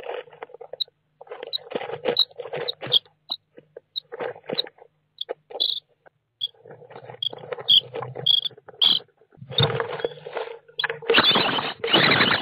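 Common starling nestlings begging inside a wooden nest box: rasping, hissing calls in broken bursts with short high chirps, mixed with the scratching and rustling of the chicks. About eleven seconds in the begging swells to a loud, almost continuous chorus, the chicks' response to a parent arriving with food.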